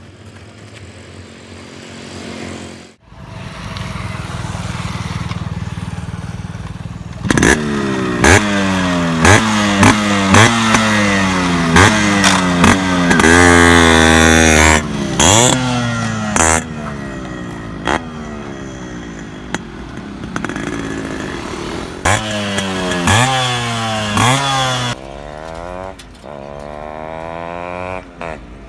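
Yamaha RX100 two-stroke single-cylinder engine running, then revved again and again from about seven seconds in. Each rev jumps up sharply and falls away, with one longer loud high-rev hold midway, before it settles to a steadier, lower running note near the end.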